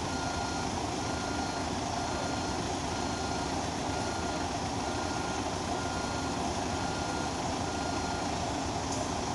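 A reversing alarm beeping about once a second over the steady running of a heavy vehicle's engine, with the beeping stopping about eight seconds in.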